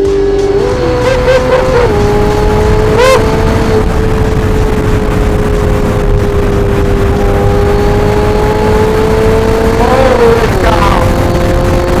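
Ferrari 488 Pista's twin-turbo V8, fitted with a Novitec sport exhaust, heard from the car at speed: a loud, steady engine note held at high revs with a few small steps in pitch as the revs shift, over wind and road rumble.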